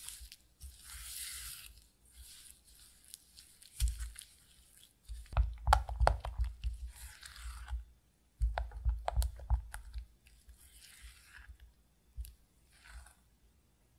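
Silicone spatula creaming softened cream cheese with granulated sugar in a glass bowl: irregular scraping and squishing strokes with sharp little taps against the glass. The strokes are busiest and heaviest between about five and ten seconds in.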